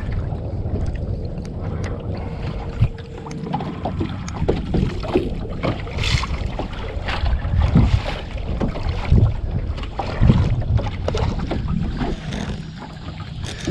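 Irregular knocks and clatter of handling in a small fishing boat, over a steady low rumble of wind on the microphone.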